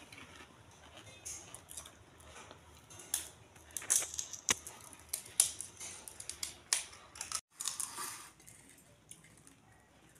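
Crisp fried fuchka (pani puri) shells being cracked open with the fingers, a run of irregular short crackles and clicks, busiest in the middle.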